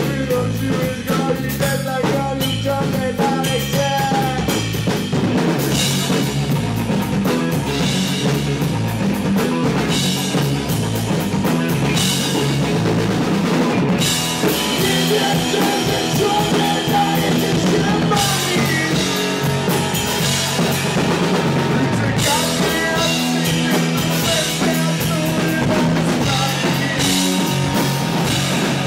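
Rock band playing live, with the drum kit prominent in the mix.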